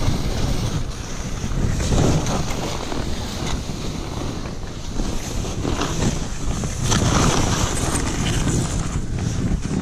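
Wind rushing over the camera microphone while ski-touring skis hiss through deep powder snow in a fast descent, the noise swelling and fading every second or two.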